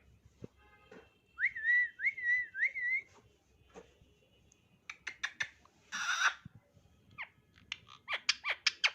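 Ringneck parrot whistling: a wavering whistle in three quick phrases, followed by a few clicks, a brief harsh noise about six seconds in, and a fast run of sweeping chirps near the end.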